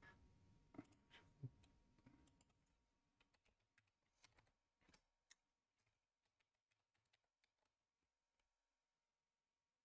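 Faint computer keyboard typing and clicking, irregular keystrokes over the first five seconds, then only a few isolated ticks in near silence.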